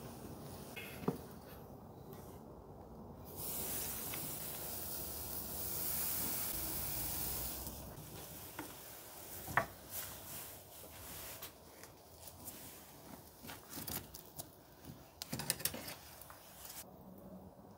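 Handling at a ceramic kamado charcoal grill as eggplants go onto the grate: a steady hiss for a few seconds, then scattered clicks and knocks. The sharpest click comes a little before ten seconds in, and a quick run of clicks follows near the end.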